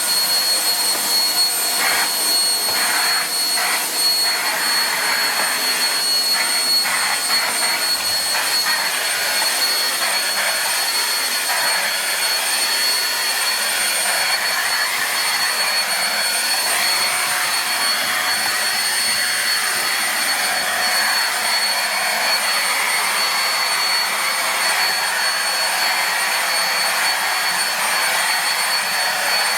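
Starwind SCH1012 vacuum cleaner running steadily: a rushing hiss of moving air with a thin, steady high whine. There are a few short crackles in the first several seconds.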